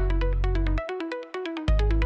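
Electronic background music: a quick repeating synth melody over a steady bass, with the bass dropping out for about a second midway and then coming back in.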